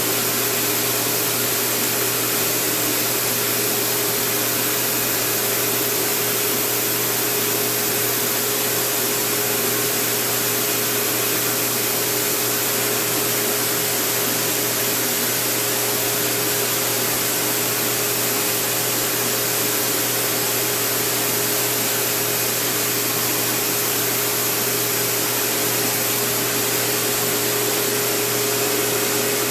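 Electric air blower running steadily: an even hiss with a steady whine, no pauses or changes.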